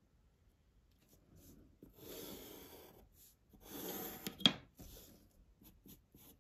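Pencil scratching on paper as lines are drawn along a ruler: a few short strokes, then two longer ones about two and four seconds in. A sharp click, the loudest sound, comes just after the second long stroke.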